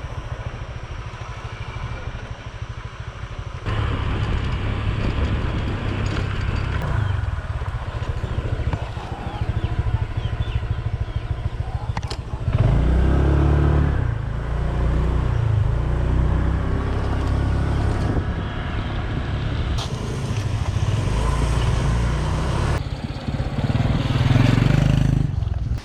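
Motor vehicle on the move: engine and road or wind noise, with a few rises in engine pitch and several abrupt changes in level.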